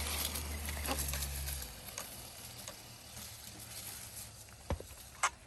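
1:10-scale RC crawler driving away: a low steady motor hum that fades out after about a second and a half, with light crackling from the tyres over the ground and two sharp clicks near the end.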